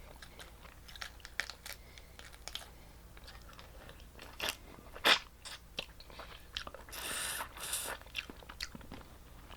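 Close-miked eating of seafood boil crab: chewing and biting with scattered wet clicks, and one sharp crack about five seconds in.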